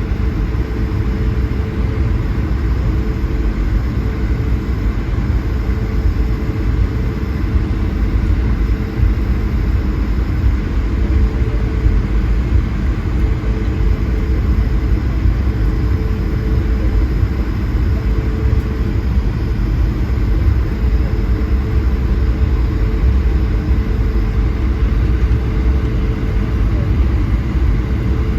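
Steady low rumble of an Airbus A220-100's Pratt & Whitney PW1500G geared turbofan engines and airframe, heard inside the passenger cabin, with a faint steady hum over it.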